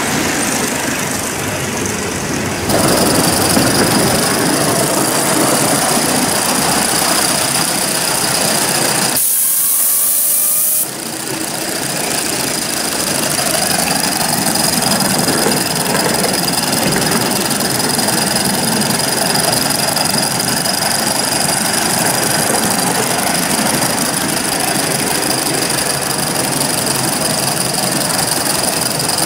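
Aster Gauge 1 live-steam GWR pannier tank locomotive running with its coaches: a steady hiss of steam with the running noise of the wheels on the track, with a louder hiss for a second or two about nine seconds in.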